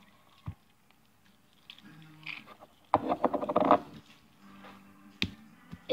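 Sticky homemade slime squelching and crackling as it is stretched and kneaded by hand, loudest in one burst about three seconds in, with a sharp click a little after five seconds.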